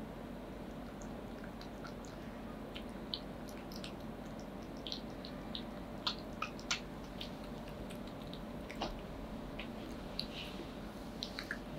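Ragdoll cat eating wet cat food from a glass bowl: scattered small clicks and smacks of chewing, over a steady low hum.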